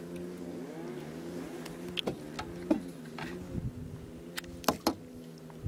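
Boat motor running steadily at trolling speed, with several sharp clicks and knocks on top; the loudest two come close together near the end.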